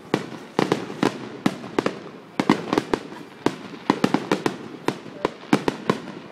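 Fireworks finale barrage: a rapid, irregular string of sharp bangs and cracks from bursting shells, several a second.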